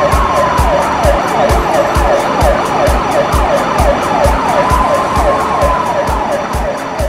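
A siren sounding rapid yelping sweeps, about four or five falling whoops a second, with a slower wail rising and falling over them twice. Under it runs background music with a steady beat.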